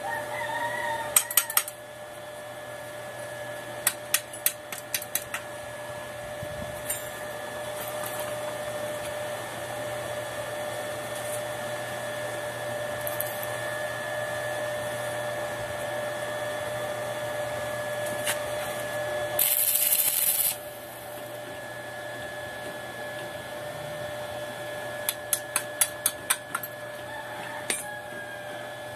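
Steel pieces being handled and tapped for welding: runs of quick light metal knocks and clanks, over a steady two-note electrical whine. About twenty seconds in comes a short, harsh hiss lasting about a second.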